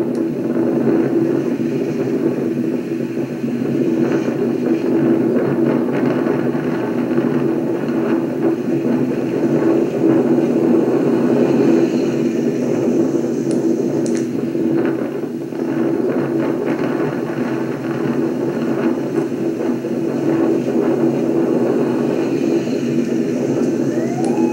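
Steady, loud storm-wind rumble during a tornado, with a few faint crackles. Near the end a rising tone begins.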